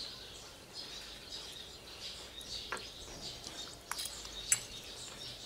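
Birds chirping in the background, with a few sharp clicks of a fork against a ceramic plate, the loudest about four and a half seconds in.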